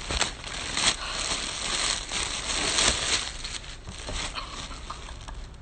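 Packaging and the hoodie being handled: crinkling and rustling, busiest in the first three seconds, then softer.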